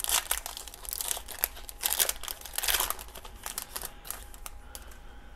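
Foil wrapper of a 1986 Sportflics baseball card pack being torn open and peeled off the cards: a run of crinkling and tearing, busiest in the first three seconds and thinning out near the end.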